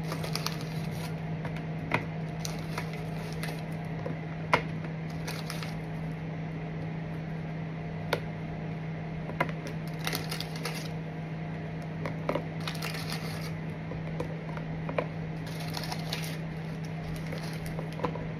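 Scattered light taps and clicks of food and utensils being handled at a kitchen counter while a dessert is layered into a container, over a steady low hum.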